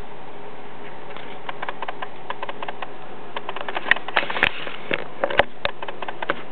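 Pet lop rabbit moving about in its wire cage: light scratching and rustling clicks over a steady hiss, with a few sharper knocks about four to five and a half seconds in.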